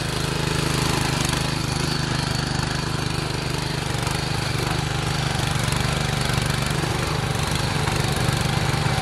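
Ruris 731K ACC power tillers' engines running steadily while pulling plows through the soil.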